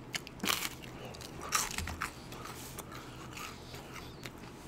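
Close-miked biting and chewing of crispy breaded fried food. Loud crunches come about half a second in and again around a second and a half, then softer chewing clicks.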